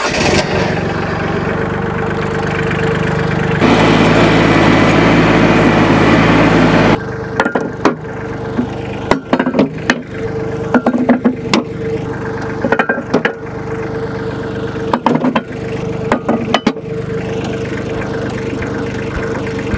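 Summit TX25 compact tractor's engine running, revved higher for about three seconds from roughly four seconds in, then settling back to a steady idle. Over the idle, loader weights knock and clank as they are stacked into the front loader bucket.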